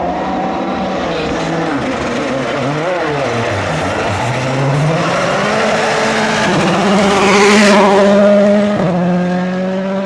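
Volkswagen Polo R WRC rally car's turbocharged 1.6-litre four-cylinder engine at full effort, its revs swinging up and down at first, then climbing steadily as the car accelerates. It is loudest about three-quarters of the way in, and the pitch steps suddenly near the end.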